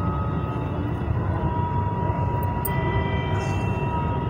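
Batata vadas deep-frying in hot oil in a kadhai: a steady sizzling and bubbling of the oil, over a low steady rumble.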